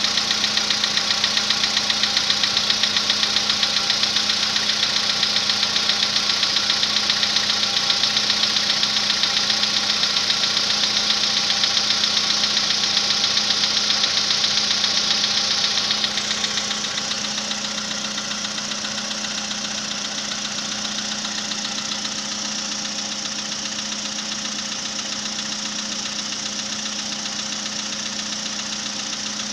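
Volkswagen Polo Sedan petrol engine idling after a cold start with a fast, even metallic knocking, the cold-start engine knock the owner is recording. About halfway through, the sound drops a little and the high clatter eases.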